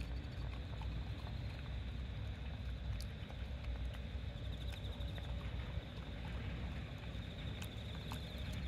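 Steady low wind rumble on the microphone, with a dog chewing soft cooked azuki beans and a few sharp clicks of its mouth.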